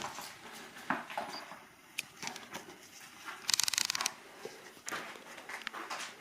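Footsteps and scuffs on gravel and debris: scattered crunches and clicks, with a short dense crunching rattle about three and a half seconds in.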